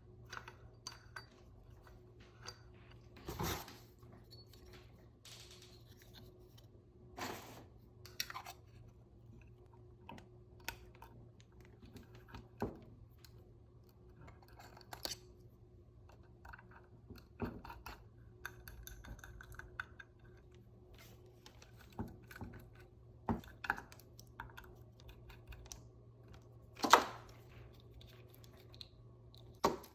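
Scattered clicks, taps and knocks of small hard objects being handled, over a steady low hum, with one louder knock near the end.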